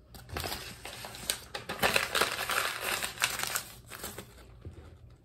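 A sandwich wrapper being crumpled up by hand: a dense run of crinkling and crackling that is loudest in the middle and dies away near the end.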